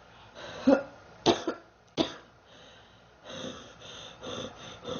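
A sick girl coughing: four sharp, hard coughs in the first two seconds, then a run of quicker, weaker coughs and breaths from about three seconds in.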